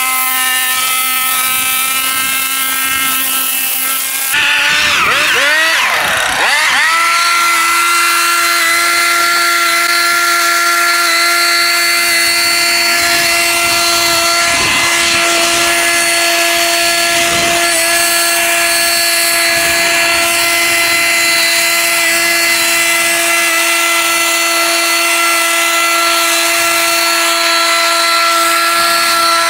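Small petrol engine of lawn-care equipment running flat out with a steady whine. About four seconds in the sound changes abruptly: the pitch dips and wavers for a couple of seconds, then settles a little higher and holds steady.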